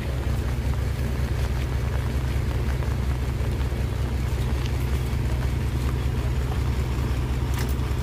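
Heavy truck's diesel engine running steadily at a constant low speed, a deep even rumble.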